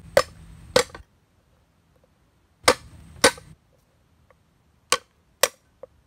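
Meat cleaver chopping garlic cloves on a thick round wooden chopping block: six sharp knocks in three pairs, about half a second apart within each pair, with a lighter tap near the end.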